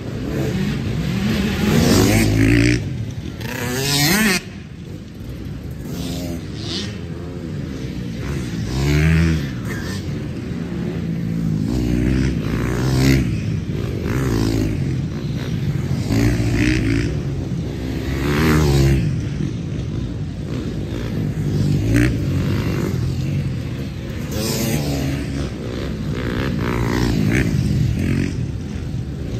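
Dirt bikes racing past one after another, their engines revving up and down through the gears as each accelerates by. Several engines overlap, with about half a dozen louder passes close by.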